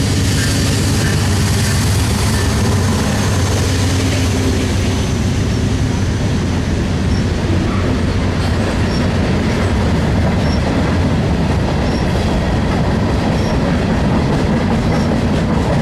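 Norfolk Southern diesel freight train passing close by: a deep engine rumble from the locomotive in the first few seconds gives way to the steady rolling and clickety-clack of freight car wheels on the rails.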